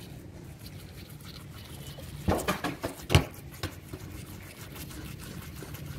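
Wet scrubbing of a toothbrush over a Doberman's foamy front teeth, with a few sharp wet clicks and smacks from the dog's mouth between about two and four seconds in.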